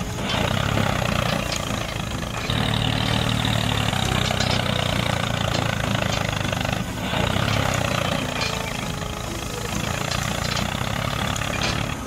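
Steady running sound of a tractor engine, with brief dips about two and a half and seven seconds in.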